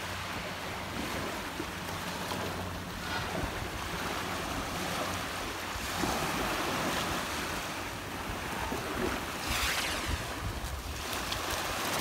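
Small waves breaking and washing up a pebble shore, with wind buffeting the microphone; one louder rush of surf near the end.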